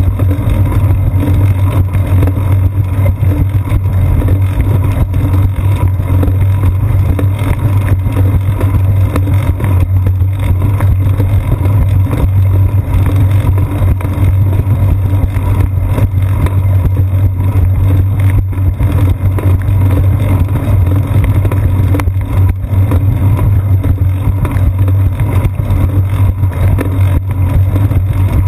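Steady low rumble of wind and ride vibration picked up by a GoPro Hero 2 mounted on a bicycle's seat post, rolling along a concrete sidewalk.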